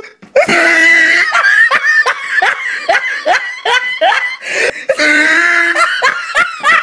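High-pitched human laughter: a quick run of short 'ha' bursts, about three a second, then a longer drawn-out laugh about five seconds in.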